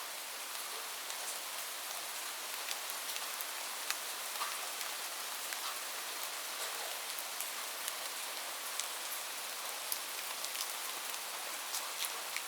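Steady rain hiss, with many separate drops ticking sharply on a hard surface.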